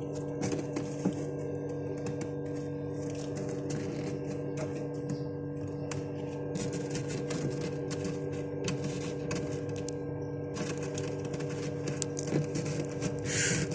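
A steady low hum made of several held tones, with scattered light clicks and short rustling hiss over it.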